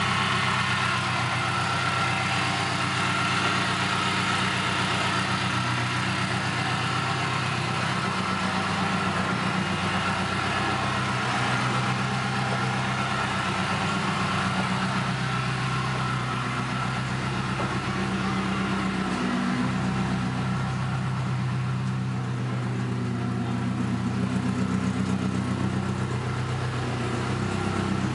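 Chevrolet Chevette DL engine running steadily at idle with a rumble, its pitch shifting briefly about two-thirds of the way in.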